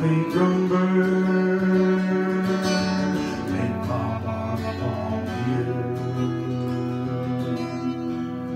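Acoustic guitar and clarinet playing a slow tune together, with the clarinet holding long notes over the guitar.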